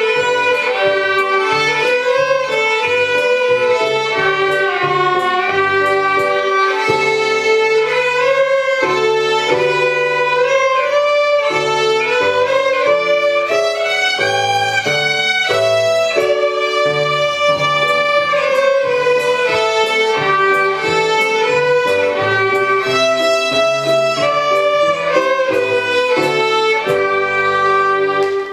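Three violins playing a carol melody together, bowed notes moving at a steady pace, with lower notes sounding beneath the tune.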